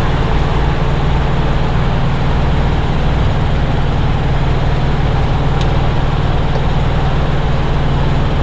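Freightliner Coronado semi truck's diesel engine idling steadily, a constant low drone.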